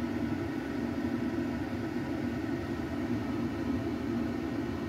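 Steady low background hum, even throughout, with no separate events.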